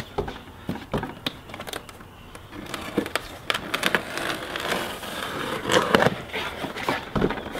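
A cardboard shipping box being opened by hand. A blade slits the packing tape while the cardboard flaps and the packing insert scrape and crackle, with a string of sharp clicks and scrapes.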